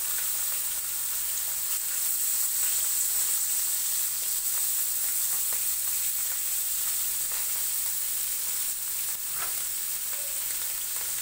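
Spice-coated fish pieces sizzling steadily as they shallow-fry in hot oil in two pans, with a few faint clicks.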